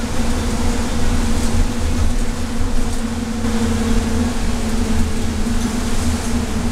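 Cabin noise inside a 2012 Nova LFS city bus under way on a wet road: a steady low engine and drivetrain drone with a constant hum over it, and road and tyre noise.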